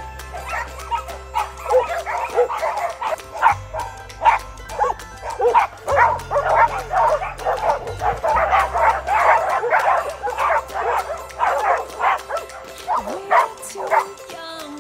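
Several dogs barking and yipping, with many short barks overlapping, over background music with a steady bass line that drops out near the end.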